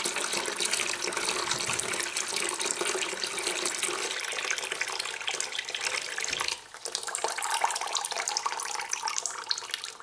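Stream of water from a hose splashing into a plastic bucket of water as it fills, briefly faltering about six and a half seconds in. The flow stops near the end as the float switch cuts power to the dishwasher's aquastop valve and the valve closes.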